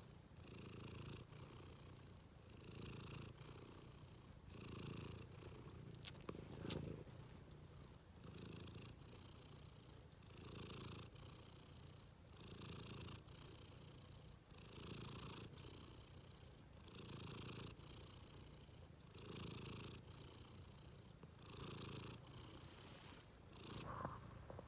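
Domestic cat purring softly, the purr swelling and fading with each breath about every two seconds.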